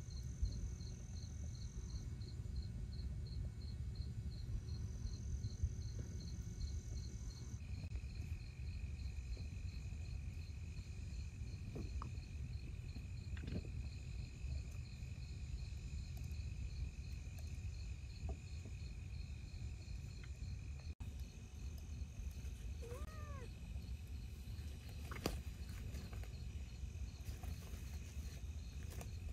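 Crickets chirping at night: one gives a fast, regular chirp of about five pulses a second, and others trill steadily, starting and stopping, over a low wind rumble on the microphone. A short wavering animal call sounds about three-quarters of the way through.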